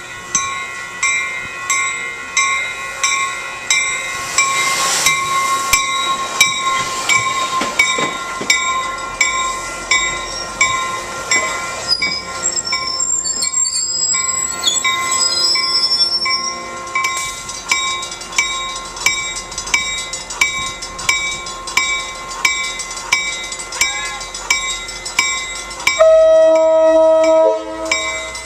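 A railroad grade-crossing bell rings steadily, about twice a second, all the way through. A train passes in the middle, with high wheel squeal. Near the end a locomotive horn sounds one chord blast lasting about a second and a half.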